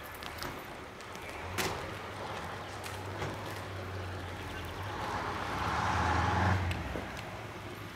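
Motor vehicle engine running nearby as a low hum. It swells louder about five seconds in and drops off sharply about a second and a half later, with a knock about one and a half seconds in.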